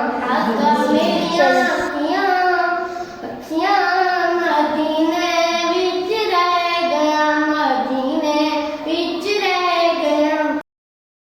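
A young girl singing a Hindi/Urdu devotional nazm in long, melismatic held notes; the singing cuts off abruptly near the end, leaving dead silence.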